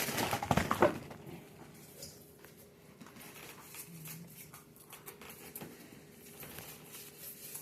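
Quiet room with faint rustling and light taps from things being handled, a few sharper clicks in the first second, over a faint steady hum.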